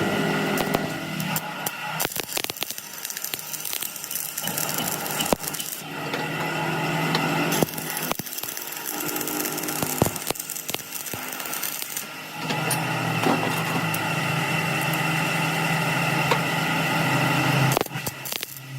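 Metal workshop tool noise: scattered knocks and clinks of metal parts being handled and worked, with a steady machine motor hum that starts about two-thirds of the way through and cuts off near the end.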